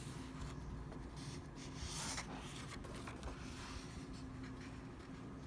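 Paper rustling faintly as a hand slides over a picture book's pages and turns a page, loudest about two seconds in.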